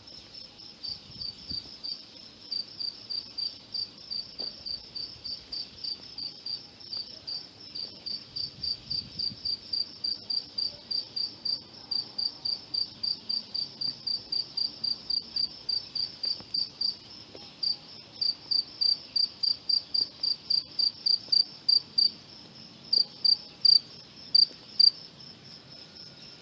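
Cricket chirping in a steady high-pitched rhythm, about three to four chirps a second, growing louder, then breaking into scattered chirps that stop shortly before the end.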